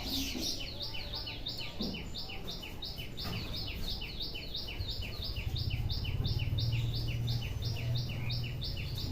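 A bird calling a quick, evenly repeated two-note chirp, about three times a second, without a break. Under it a low hum swells about midway and fades near the end.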